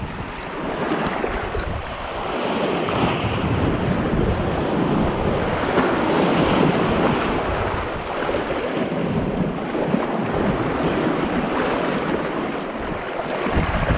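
Rough sea surf washing and churning over rocks, with water splashing close to the microphone and wind buffeting it. A continuous loud rush that swells and ebbs.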